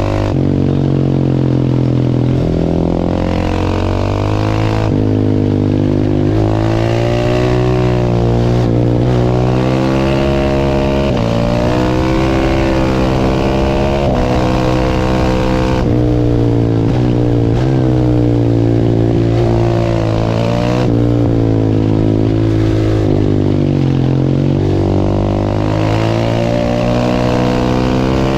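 A 690 cc single-cylinder supermoto motorcycle engine running hard under way. Its revs climb and fall over and over, with a sudden drop in pitch every few seconds.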